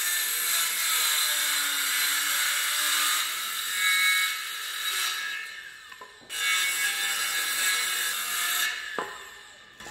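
Makita circular saw cutting through 2x4 lumber. The first cut runs for about four seconds and the blade winds down. The saw starts again about six seconds in for a second cut of roughly two and a half seconds, which stops shortly before the end.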